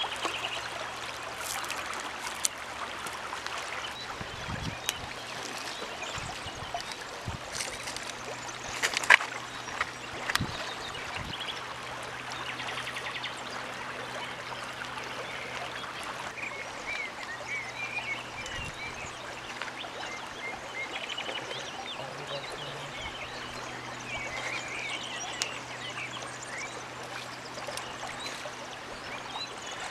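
River water flowing steadily over a gravel bed. A few sharp clicks and knocks come about nine to eleven seconds in, and bird chirps are heard in the second half.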